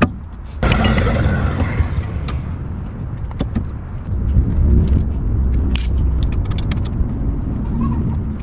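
Steady low rumble with scattered sharp metallic clicks and clinks of tools and parts being handled. It gets louder about half a second in.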